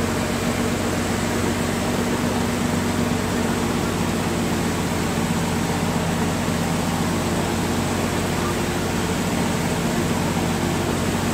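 Fishing boat's engine running with a steady low hum under a constant wash of wind and water noise.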